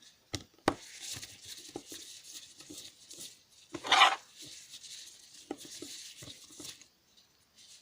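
A small screwdriver working the last screws out of a smartphone's case: light clicks and faint scraping of metal on the screw heads and plastic, with one louder, brief scrape about four seconds in.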